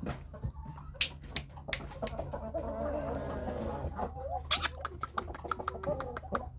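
Shamo gamecock clucking with a long wavering call, among sharp taps and clicks, the loudest about four and a half seconds in, over a steady low hum.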